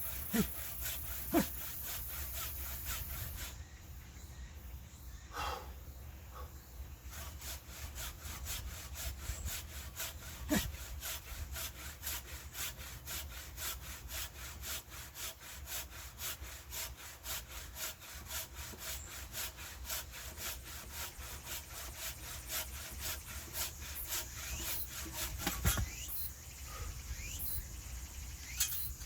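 Hand saw cutting through wood in quick, even back-and-forth strokes, with a few dull knocks.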